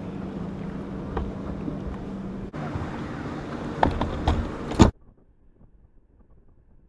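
Wind buffeting the microphone on a bass fishing boat, over a steady low hum, with a few sharp knocks about four seconds in; then the sound suddenly drops away to a faint hiss.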